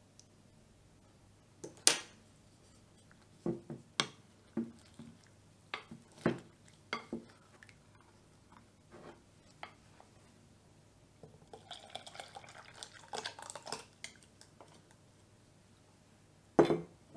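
Wooden spoon and stainless steel saucepan knocking and clinking against a glass mixing bowl in a series of separate sharp strikes, with a few seconds of quick, busy stirring clatter about two-thirds of the way through. This is part of the milk being mixed into the egg-yolk mixture for the custard.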